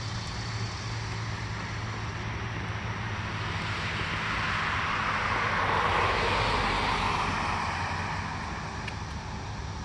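A car driving past on the road, its tyre and engine noise swelling to a peak about six seconds in and then fading, over a steady low hum.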